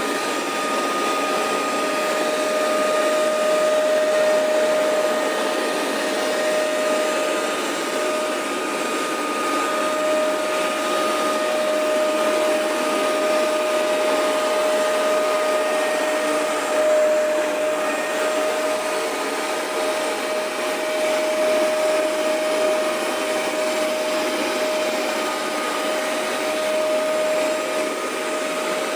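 Hoover MaxExtract 77 carpet cleaner running steadily during cleaning passes: a constant motor whine over a rushing of air and water suction.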